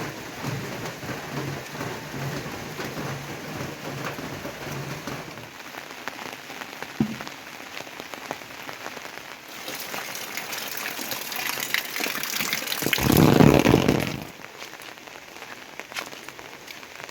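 Steady rain falling, with a louder swell building from about ten seconds in and peaking around thirteen to fourteen seconds before falling back. A low steady hum runs under the rain for the first five seconds or so.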